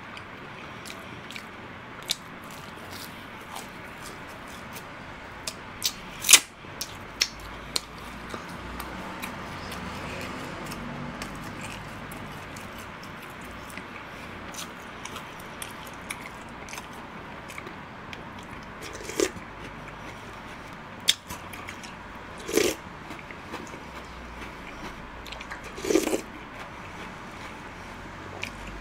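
Close-miked eating: chewing with scattered sharp mouth clicks, one stronger about six seconds in, and a few short, louder mouth sounds spread through the second half.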